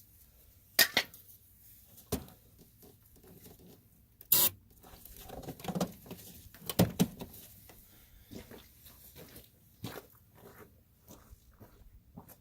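Irregular rustling and scratching with scattered sharp clicks and knocks, the loudest about a second in, midway and about seven seconds in: handling noise from something being moved or worked on close to the microphone.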